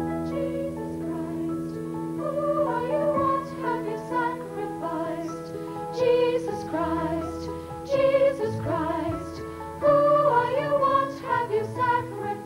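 Rock-opera song performed live on stage: singing with backing voices over sustained chords from the band, with louder sung phrases in the second half.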